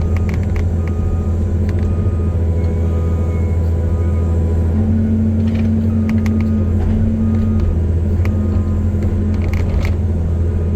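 CAT 320C excavator's diesel engine running steadily under load, a deep drone with a higher steady hum joining about five seconds in, and faint clicks and clanks over it.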